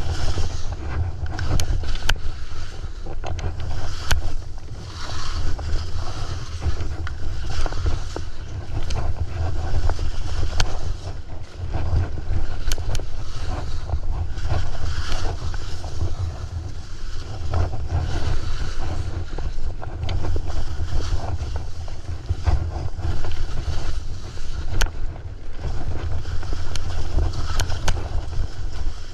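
Skis running and scraping over snow on a steep descent, with heavy wind buffeting on the action-camera microphone. The hiss of the snow swells and fades with each turn, and a few sharp clicks cut through.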